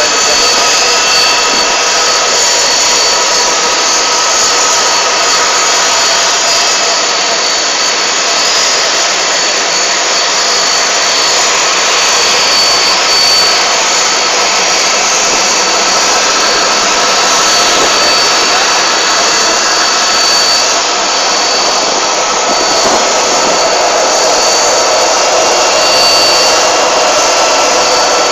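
Steady whine of jet aircraft turbines: a loud, even hiss with several high steady tones over it.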